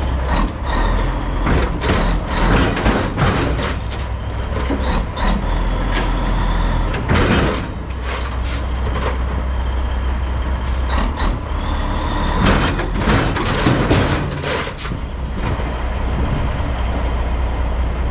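Heavy diesel truck engines idling steadily, with several short bursts of air hiss from the trucks' air systems, the loudest about seven seconds in and again around thirteen seconds.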